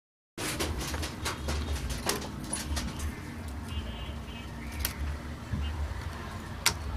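Light clicks and taps of a soldering iron and desoldering tools against a CRT television's circuit board, over a steady low hum, with one sharper click near the end.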